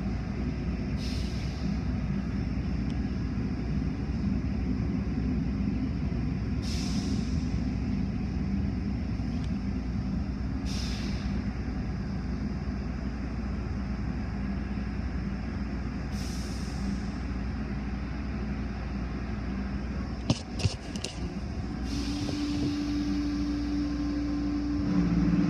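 Automatic car wash running, heard from inside a car: a steady rumble of spraying water and machinery, with four short hisses a few seconds apart. A few sharp clicks come about three-quarters through, and a steady hum sets in near the end.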